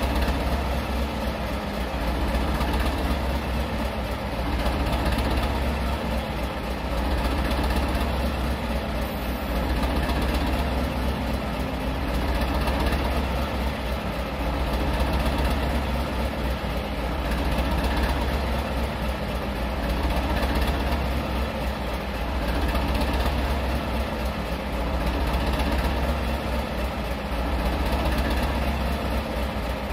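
Class 207 'Thumper' diesel-electric multiple unit standing with its English Electric 4SRKT diesel engine idling, a deep steady running sound that swells and fades slowly about every two and a half seconds.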